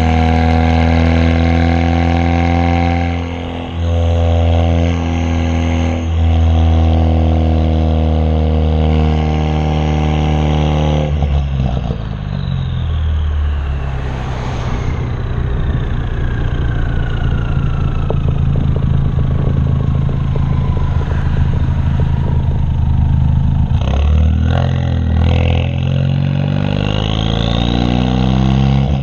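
A 2016 Ford Focus RS's turbocharged 2.3-litre EcoBoost four-cylinder, breathing through a catless downpipe and muffler delete, heard from behind the car while driving. It holds a steady loud exhaust drone under throttle, with a brief dip about four seconds in. About eleven seconds in it drops off throttle to a lower note, with a thin whine falling slowly in pitch, then accelerates again with rising pitch near the end.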